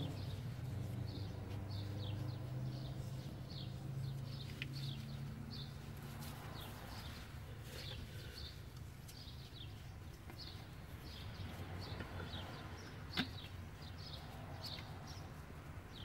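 Small birds chirping over and over in short high notes. A low steady hum fades out over the first few seconds, and there is one sharp click late on.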